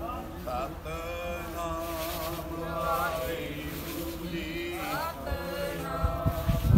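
Voices chanting Sikh devotional verses in a sustained, bending melody, with low thumps near the end.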